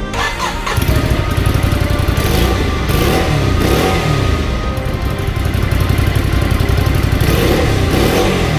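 Ducati Scrambler's air-cooled L-twin engine starting and catching about a second in, then running with two throttle blips that rise and fall in pitch, one early and one near the end.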